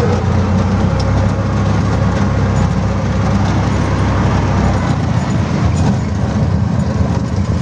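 Three-wheeler auto rickshaw's engine running steadily under way, heard from inside its passenger cabin along with the road noise.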